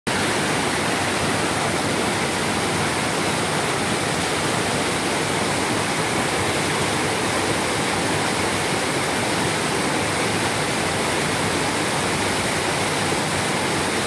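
Waterfall: white water rushing steadily down a rocky cascade close by.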